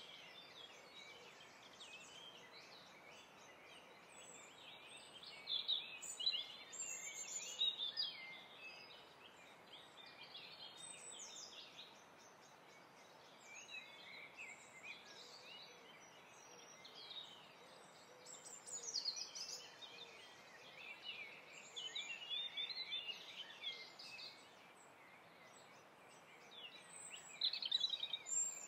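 Several birds singing and chirping, with quick high-pitched calls overlapping over a faint steady hiss; the song comes in louder clusters a few times.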